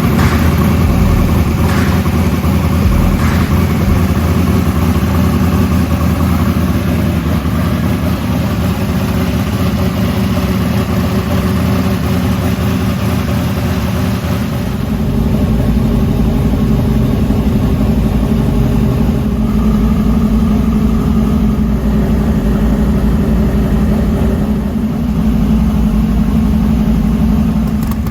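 Car engine running steadily, its sound shifting to a deeper note about halfway through.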